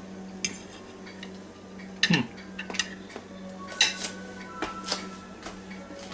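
A metal fork clinking and scraping against a dinner plate in a few separate strikes, the loudest about two seconds in, over a steady low hum.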